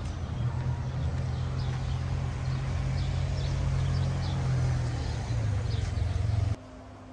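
Town street traffic: a steady low engine drone that swells about four seconds in as a motor scooter rides past close by. Near the end it cuts off abruptly to a much quieter hum.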